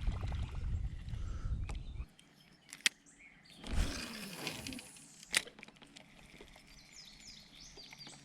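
Quiet river surroundings. A low rumble fills the first two seconds, then come two sharp clicks a few seconds apart with a short splashy rush between them, and birds chirping near the end.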